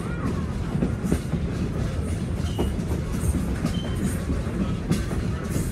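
A passenger train running along the track, heard from aboard: a steady low rumble of the wheels on the rails, with irregular clicks and knocks and a couple of brief faint squeaks.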